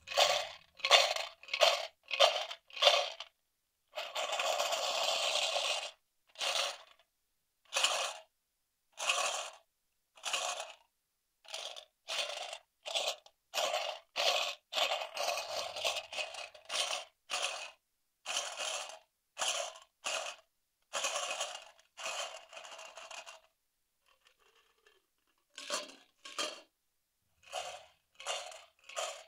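A recorded can sound effect, metal scraping and crunching in short repeated bursts, with one longer burst near the start and a brief pause near the end. It is played through a real-time binaural 3D audio engine, so the can's position around the listener's head changes as the phone is turned.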